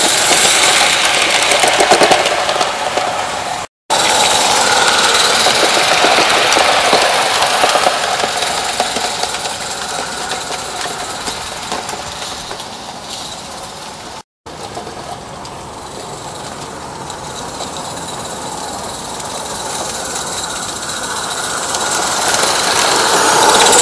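Small live-steam garden-railway locomotive running with a train of wagons, its rapid exhaust chuffing loud close by, fading as it draws away, then growing loud again as it approaches near the end. The sound breaks off completely twice, briefly.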